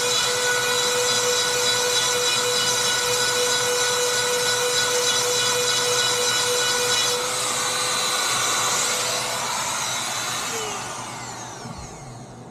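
Dremel rotary tool with a grinding stone sharpening chainsaw chain cutters: a steady high whine over a grinding hiss. About ten seconds in it is switched off and the whine falls in pitch as the motor spins down.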